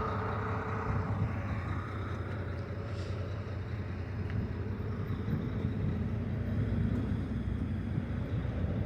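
Steady low rumble of a vehicle engine running, with a faint whine that fades out in the first couple of seconds.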